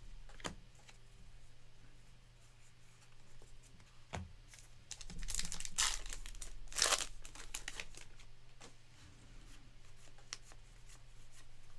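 A trading-card pack wrapper being torn open and crinkled, loudest in a couple of rustling bursts about midway, with a few light clicks of cards being handled before it.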